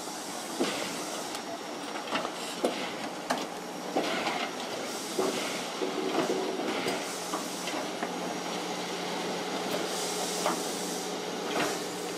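DR class 35.10 steam locomotive (35 1097-1) moving slowly: steam hissing from near the cylinders, with irregular clanks and knocks from the running gear and wheels on the track, and a steady low hum.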